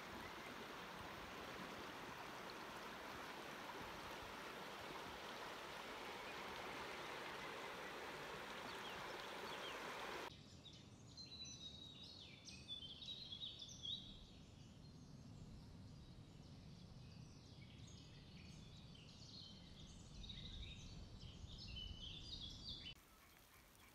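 Shallow river running fast over gravel, a steady hiss of water. About ten seconds in it cuts off abruptly to small birds chirping and singing.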